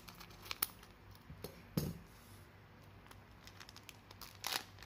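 Scissors snipping the top off a foil trading-card booster pack, a few sharp clicks, then a short soft knock as they are set down on the playmat. Near the end, a brief crinkle of the foil wrapper as the pack is pulled open.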